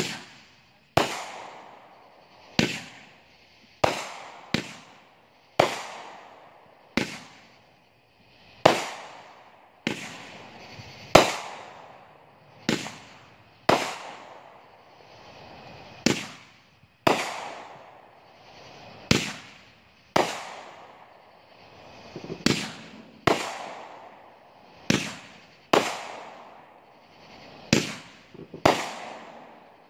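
Aerial fireworks shells bursting one after another, a sharp bang roughly every second, each trailing off in an echo.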